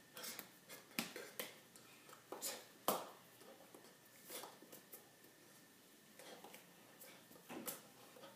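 Quiet claps, taps and rustles of hands striking each other and a T-shirt front during sign language. Two sharper claps come about one and three seconds in.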